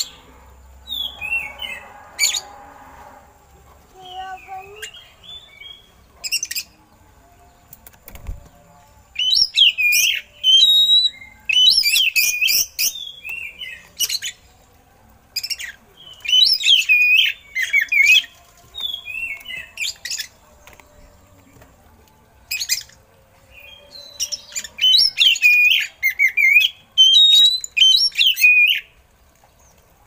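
Oriental magpie-robin (kacer) singing: a few short calls, then from about nine seconds in a run of loud bursts of fast, sweeping, varied phrases. It is a bird whose song is filled with mimicked eagle calls.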